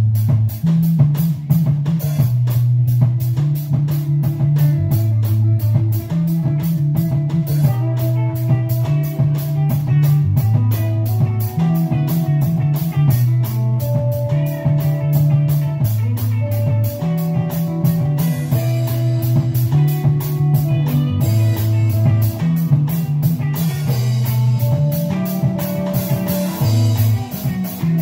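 Live rock band playing: electric bass riff, drum kit and electric guitars. A melody of long held notes comes in over them about eight seconds in.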